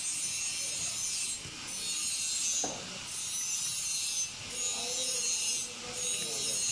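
A large knife scraping and rasping against fish on a wooden cutting block, in even strokes about every second and a half.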